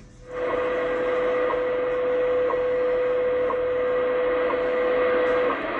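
WWV time-signal broadcast received in AM on a Yaesu FTdx10 at 25 MHz. A steady 500-hertz tone is broken by a short seconds tick once a second, over shortwave hiss. The tone stops about five and a half seconds in while the hiss goes on.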